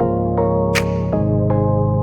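Background music: synthesizer chords changing about once a second over a sustained bass, with a crisp tick of a hi-hat on the offbeat.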